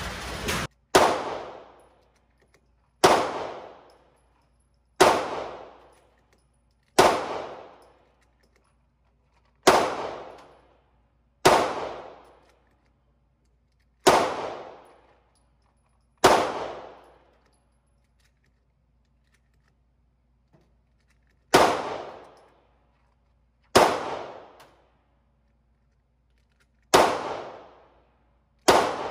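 Handgun shots fired one at a time, about every two seconds, a dozen in all, each followed by a brief echoing decay. There is a longer pause in the middle.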